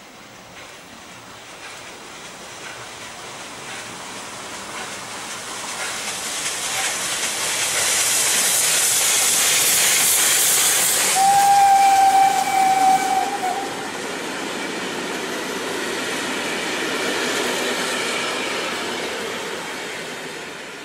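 Steam locomotive passing: a hiss of steam builds up, then the whistle blows once, a steady tone held for about two and a half seconds, and the running noise of the train fades away near the end.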